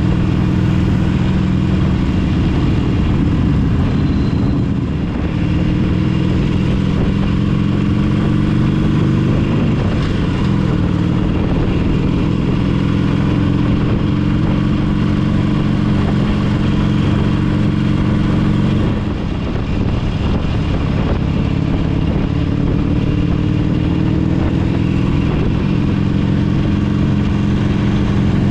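Motorcycle engines running steadily and loudly, their pitch drifting slowly up and down.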